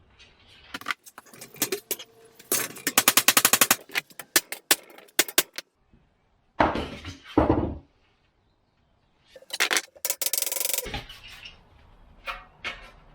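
Bursts of rapid hammering on steel, about ten blows a second, from a power tool working on bent body metal and brackets, with single metal clanks between the bursts.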